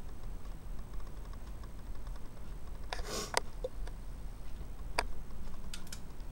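A few light clicks from make-up items being handled, with a short hissing rustle about three seconds in and single sharp clicks near the end, over a steady low hum.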